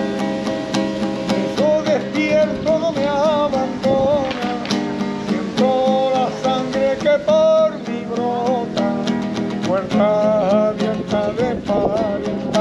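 Strummed acoustic guitar accompanying a voice that sings long, wavering held notes in a Spanish song.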